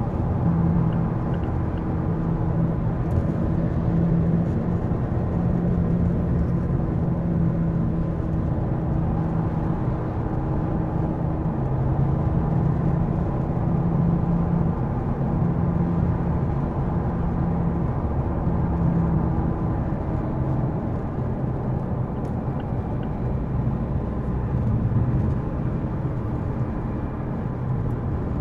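Low pulsing drone in a 2015 Mazda 3 sedan, amplified, over steady car running noise. The drone swells and fades every second or two and drops lower in pitch about twenty seconds in.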